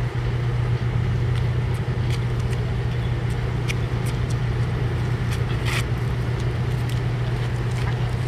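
Steady low drone of the training ship's diesel engine as it comes alongside the quay to berth, with a few faint clicks and a short rushing noise about halfway through.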